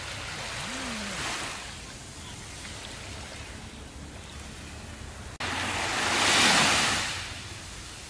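Small waves breaking gently on a sandy shore, each washing up the sand with a soft hiss. A lighter wash comes about a second in. A louder one in the second half cuts in abruptly after a momentary drop-out, swells, then fades.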